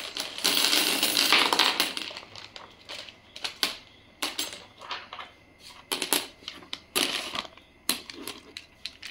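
Small coloured aquarium pebbles clattering as they are poured and handled: a dense rattle for about the first two seconds, then scattered single clicks as stones drop one at a time.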